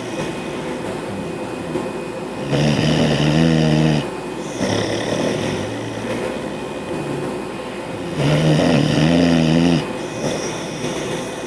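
Bulldog snoring: two loud, wavering snores, each about a second and a half long and about five and a half seconds apart, with quieter breathing between them. A window air conditioner hums steadily underneath.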